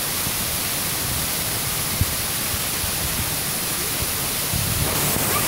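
Small waterfall: water running steadily over a rock face into a shallow pool, an even rushing hiss, with a brief low thump about two seconds in.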